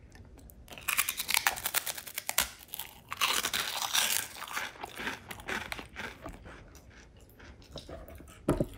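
Close-up crunching of a bite into a thick, crunchy salted cracker, then chewing. The crunches are loud and dense at first and grow softer and sparser after about four seconds.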